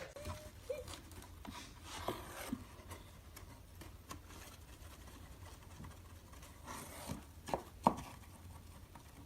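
Quiet room with a few light taps and scuffs, and a brief faint squeak about half a second in.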